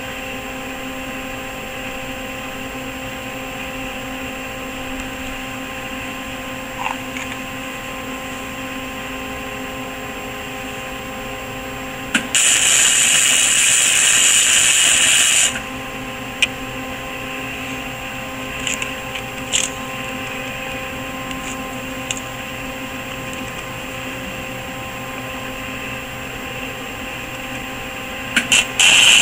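Welding arc crackling in one burst of about three seconds, about twelve seconds in, as a steel axle bearing bracket is welded to a go-kart frame. A steady hum with a few fixed tones runs under it, with a few short ticks after the burst and short spits of the arc starting again at the very end.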